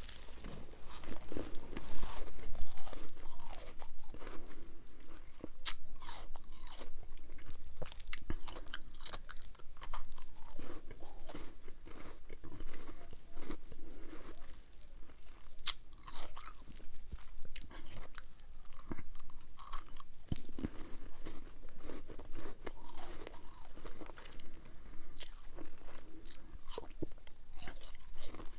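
Close-up crunching and chewing of freezer frost ice in the mouth, a run of crisp cracks and crackles with no pause.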